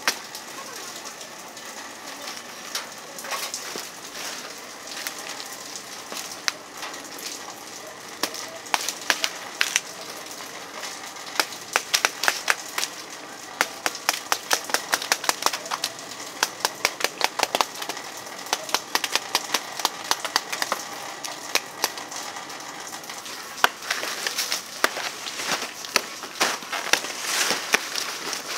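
A cleaver ground from a steel saw blade chopping through banana leaves and stalks: crisp cutting snaps, a few at first, then coming in quick runs of several a second from about a third of the way in, over a steady hiss.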